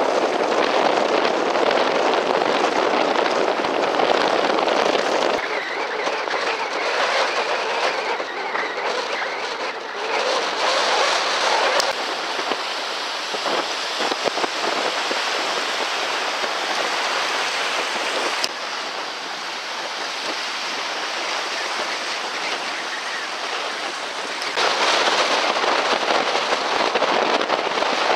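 Steady rushing noise of wind and choppy sea water. It changes abruptly in tone and loudness about five times.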